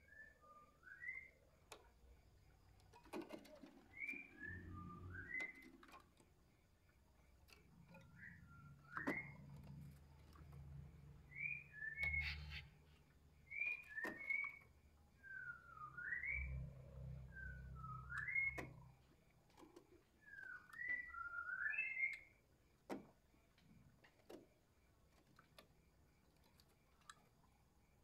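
Blue whistling thrush giving short phrases of clear whistled notes with quick up-and-down glides, repeated every few seconds, with occasional sharp clicks between them.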